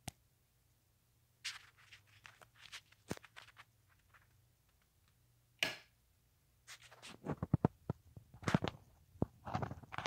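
Craftmade Pro Builder ceiling fan running with a faint steady low hum, under scattered short rustles and clicks. In the last three seconds a close cluster of sharp clicks and knocks comes as the fan's light kit is switched on.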